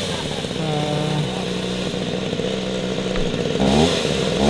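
Petrol chainsaw's two-stroke engine idling, then revved up and down about four seconds in.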